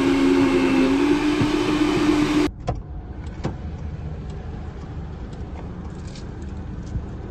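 Electric countertop blender running with a steady motor whine that rises slightly in pitch about a second in, then cuts off abruptly after about two and a half seconds. What follows is a much quieter low hum with a couple of light clicks.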